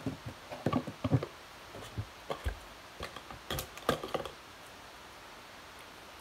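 Light clicks and knocks of small plastic containers being handled and set down on a table, a dozen or so irregular taps that stop about four seconds in, leaving faint room tone.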